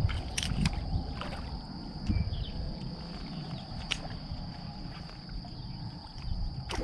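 Kayak on open water: a steady low rumble and water noise around the hull, broken by a few sharp clicks.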